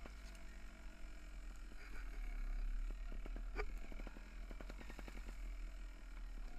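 Mountain bike rolling fast down a dirt forest trail: a steady low rumble on the mounted camera, with bursts of quick rattling clicks as the bike runs over roots and bumps. The loudest single knock comes about three and a half seconds in.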